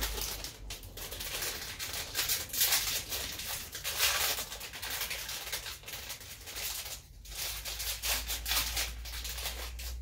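Plastic packaging and plastic parts being handled: irregular rustling and crinkling with many small clicks and knocks, briefly quieter about seven seconds in.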